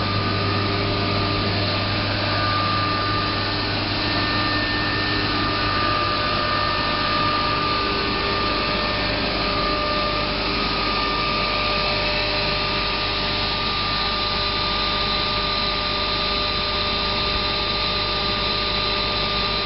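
Muller Martini 3601 book saw running: a steady machine drone with a low hum and several steady whining tones that hold without a break.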